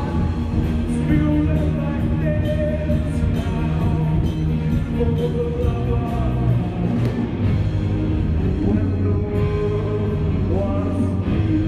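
A band playing live: electric guitars, bass and drums with a steady beat, heard from the audience.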